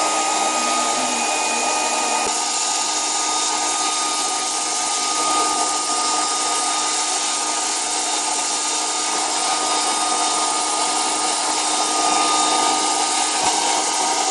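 Handheld hairdryer running steadily on the back glass of a phone, a rush of air with a constant motor tone. It is heating the glass to soften the adhesive underneath.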